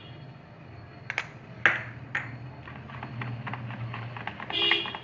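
A spoon clinks sharply against a bowl a few times, then batter is stirred quickly with a rapid run of small clicks. A brief ringing tone comes near the end.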